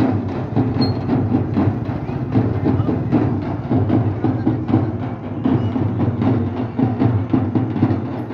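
Drums beaten in a fast, steady rhythm, the street drumming of a Muharram procession.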